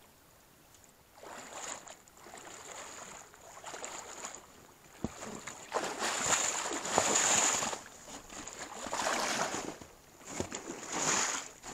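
A hooked brown trout splashing and thrashing at the surface of shallow river water as it is played in close, in a run of uneven surges of splashing starting about a second in.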